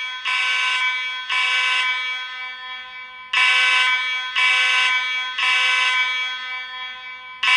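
Space Age AV32 fire alarm horn sounding a buzzy horn tone in the temporal-three evacuation pattern. It gives three blasts, pauses, then three more, and the next group begins near the end.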